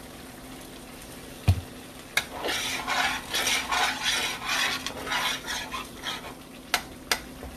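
A spoon stirring gravy in a cast-iron skillet, scraping round the pan in strokes about two a second. A single thump comes about a second and a half in, and there are a couple of light clicks near the end.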